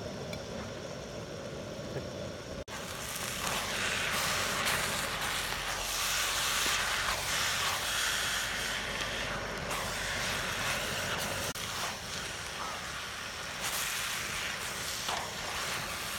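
Chopped onions and spice powders frying in a large steel kadai, sizzling as a wooden spatula stirs them, over the steady rush of the cooking fire. The sound breaks off for an instant about three seconds in, and the sizzling is louder after it.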